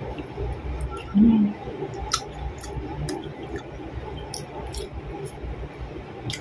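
Close-up eating sounds of fried eggplant with sambal: wet chewing and scattered mouth clicks and smacks, with a short hum from the eater about a second in.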